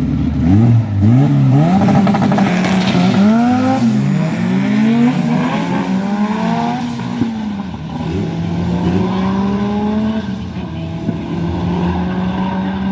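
Turbocharged Honda Civic drag car's engine at full throttle. Its pitch climbs and drops in repeated sweeps over the first five seconds, then settles into a steadier, lower note.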